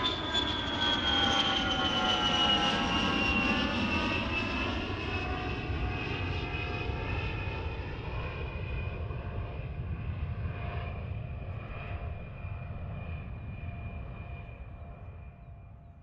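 An aircraft passing overhead: a low engine drone with whining tones that slowly fall in pitch, fading away over the last few seconds.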